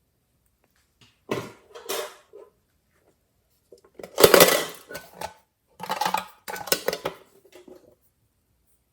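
Glossy slime being mixed in a container, with a utensil scraping and clacking against it in three bursts; the middle burst is the loudest.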